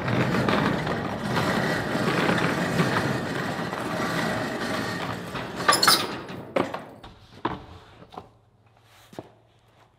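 Corrugated steel roll-up door being raised by its hand chain: a continuous rattle of the slats for about six seconds, ending in a loud clatter as it reaches the top. A few scattered knocks follow.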